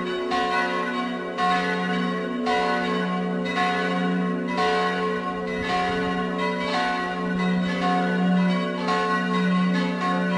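Full peal of a village church's swinging bells: several bells strike in an overlapping, uneven rhythm about once a second, over a low ringing hum that carries through.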